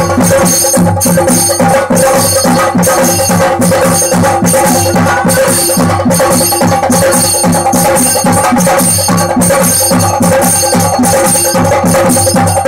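Loud, fast temple percussion accompanying Theyyam: chenda drums beaten in a dense, steady rhythm with metal hand cymbals clashing throughout.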